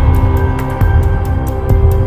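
Background music: an ambient track with sustained tones over a deep bass pulse and a steady beat.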